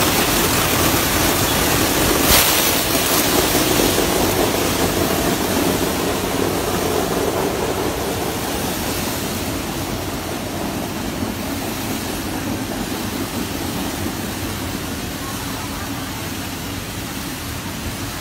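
Automatic motorbike wash machine running: rotating brushes and water spray jets working on a scooter, a steady mechanical whir with hiss. A brief louder spray about two seconds in, and the sound grows steadily fainter.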